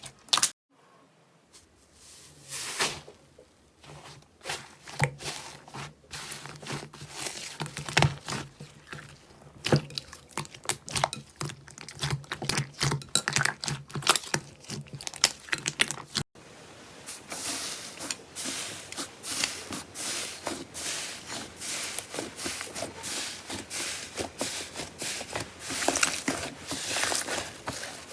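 Slime being squeezed and worked by hand, giving many quick sticky clicks and crackles. The sound changes abruptly about sixteen seconds in, as the next slime clip begins.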